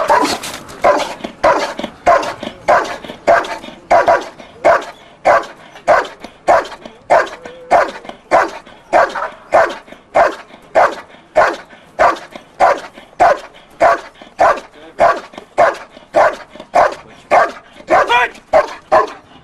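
Belgian Malinois barking steadily and rhythmically, a little under two barks a second, in a bark-and-hold: the dog is guarding a helper who holds a bite sleeve and barks without biting.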